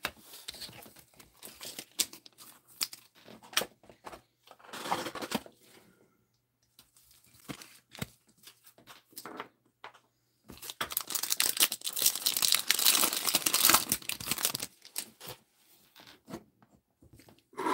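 Gloved hands handling trading cards and their plastic: crinkling and rustling as cards are slid into clear plastic sleeves, with scattered light clicks and a longer, louder stretch of crinkling about ten seconds in.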